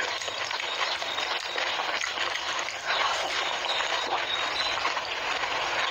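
Close-miked eating of pani puri: crisp fried puri shells crunching and being chewed, a dense, steady crackle of small clicks.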